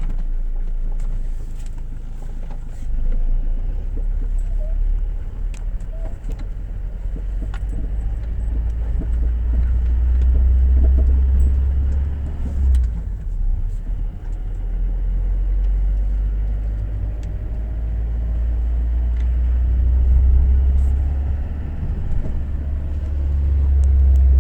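Car on the move: a low, steady rumble of engine and road noise that swells and eases over several seconds.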